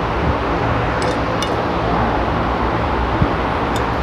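Steady restaurant background noise, a low hum and hiss, with a few faint clinks of metal tableware.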